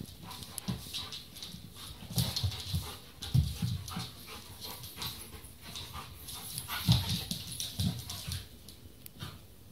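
A German shepherd and a dachshund play-fighting, growling and snarling in several short bursts. Through it come sharp clicks of claws scrabbling and jaws snapping on a laminate floor.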